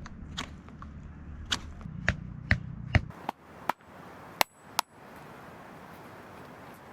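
A series of about nine sharp knocks, irregularly spaced over the first five seconds, with a low rumble under the first three seconds and a brief high ring after one of the later knocks.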